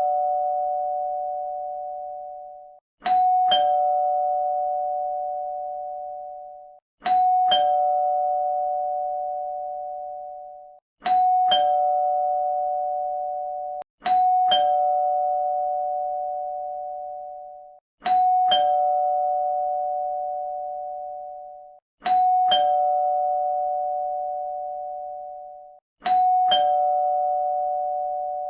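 Two-tone doorbell chime ringing ding-dong again and again: a higher note, then a lower one about half a second later, fading away over a few seconds before the next ding-dong. It repeats about every four seconds.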